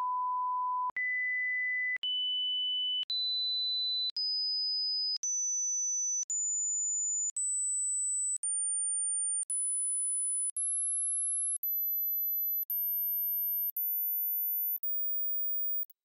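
Pure sine-wave hearing-test tones, about fifteen steady one-second beeps with short breaks between them, each one step higher in pitch, climbing from 1,000 Hz to about 15,000 Hz in 1,000 Hz steps.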